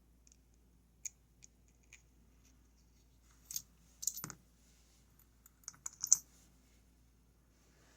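Scattered small metal clicks and taps, a few faint ones and then two louder clusters in the middle, as the plug of a Goal Z lock is pushed out of its housing with a plug follower.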